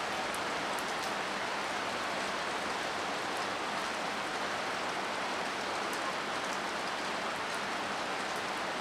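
Rain falling steadily onto flooded paved ground, a dense even hiss of splashing drops with faint scattered ticks of single drops.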